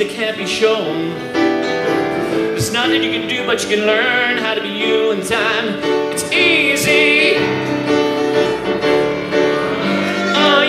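A man singing while playing a grand piano, some held notes sung with a wavering vibrato.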